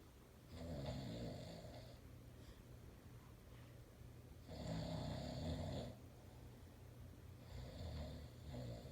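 A man snoring in his sleep: three long snores, about three and a half seconds apart.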